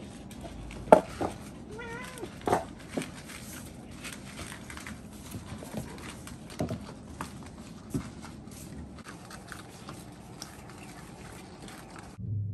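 Several house cats eating from food bowls, with scattered clicks of eating and bowls, and one short meow about two seconds in.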